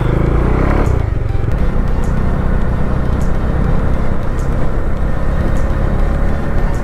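Bajaj Dominar 400 single-cylinder engine running under way, with wind noise. From about a second in, electronic background music with a steady beat plays over it.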